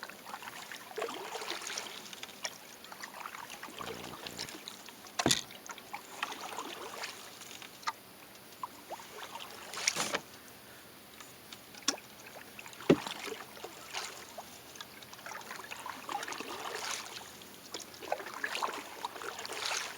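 Paddle strokes in calm lake water from a small dinghy: a splashing swish every few seconds, with a few sharp knocks, the loudest about thirteen seconds in.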